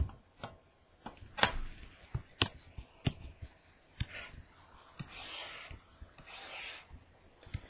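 Tablet pen working on a screen: a string of sharp taps and clicks, about one a second, then two short scratchy strokes of the pen tip as lines are drawn.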